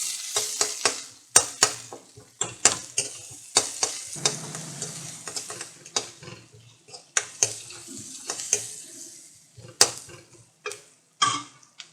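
Sliced onions sautéing in hot oil with mustard seeds, a utensil stirring and scraping the pan in many irregular clicks and scrapes over a faint sizzle.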